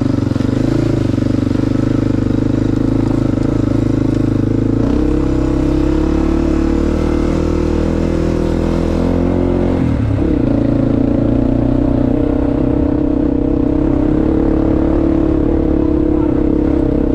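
ATV engine running steadily while riding, its note shifting about five seconds in and again near ten seconds.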